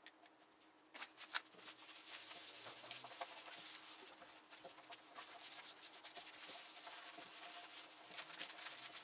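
Two pairs of hands rubbing linseed oil into a bare wooden benchtop. The faint, continuous swishing and rubbing is dotted with small scuffs and taps, and starts about a second in.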